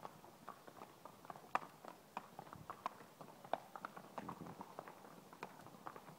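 Horse's hooves clip-clopping on a paved yard as it is led at a walk: an uneven run of sharp hoof strikes, a few a second.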